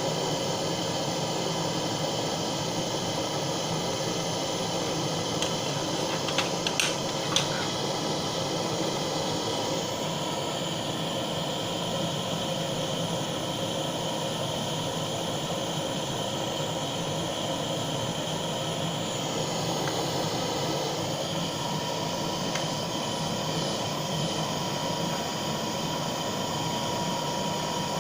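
Butane blowtorch flame hissing steadily while heating molten solder, with a few light taps about seven seconds in.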